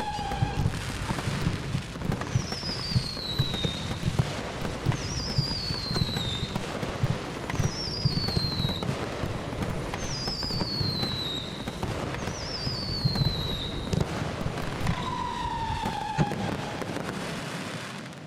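Several consumer firework cakes going off together: dense crackling and popping, with a falling whistle about every two and a half seconds.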